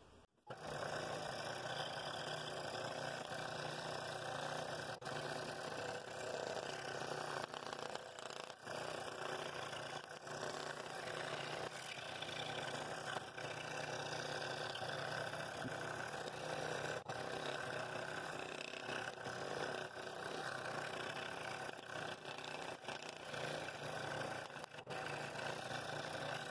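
Scroll saw running steadily, its fine blade cutting a ring out of a wooden bowl blank at an angle.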